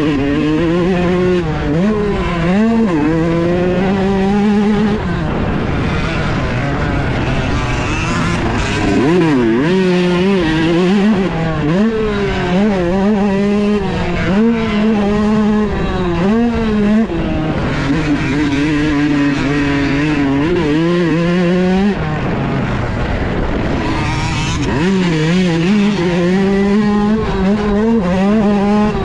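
Yamaha YZ125 single-cylinder 125cc two-stroke dirt bike engine under hard riding: the revs climb and fall again and again as it is run through the gears, easing back briefly several times before picking up once more.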